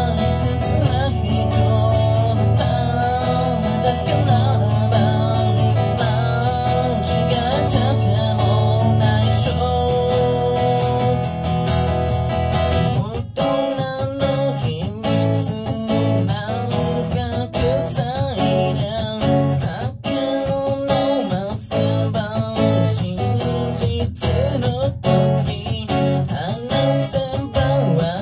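Acoustic guitar strummed with a man singing over it. About 13 seconds in, the strumming turns choppier, with short, sharp strokes.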